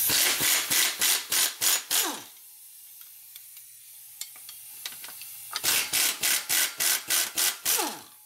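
Brisk rubbing strokes on a hard surface, about four a second, in two runs of a couple of seconds each with a pause between.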